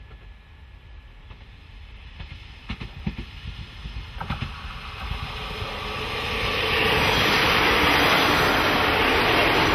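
JR KiHa 40-series diesel railcar train approaching and passing close by. Its sound grows louder with a few wheel clicks over rail joints, then the engines and wheels on the rails come up loud and steady from about seven seconds in as the cars go by.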